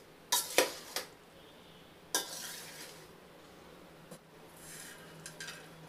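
Metal slotted ladle clanking against a metal pot while mixing cooked mutton biryani: three sharp clanks in the first second and another about two seconds in, then softer scraping through the rice near the end.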